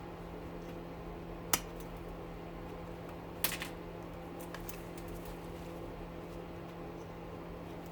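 Sharp metallic clicks as crimped copper pieces are pried and snapped off an electric rotor, two louder ones about a second and a half in and again near the middle, over a steady low hum.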